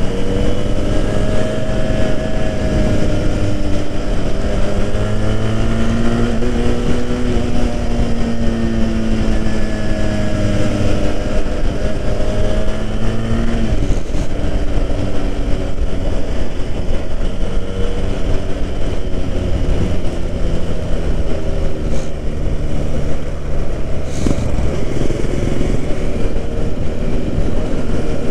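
Benelli 302R's parallel-twin engine running on the move, its pitch rising and falling with throttle and gear changes, with a sharp drop in revs about halfway through. Steady wind rumble on the microphone underneath.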